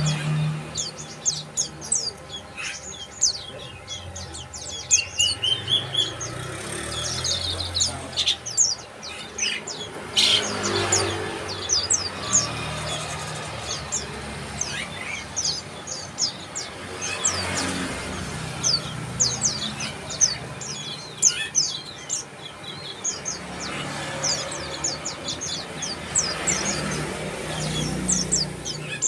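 Bar-winged prinias calling: a continuous run of quick, high chirps, many overlapping, with a short rising trill about five seconds in.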